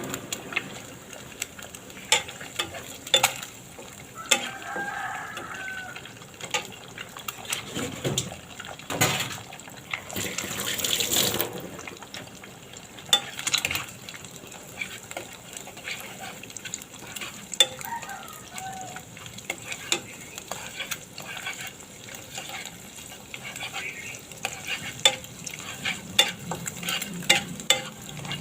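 Cooking sounds: many light clicks and knocks of utensils, a rushing splash or sizzle lasting about two seconds near the middle, and a chicken calling in the background about five seconds in and again later.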